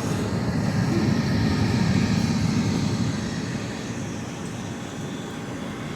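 GE 30-pint dehumidifier running: a steady whir of its fan and compressor, a little louder in the first few seconds.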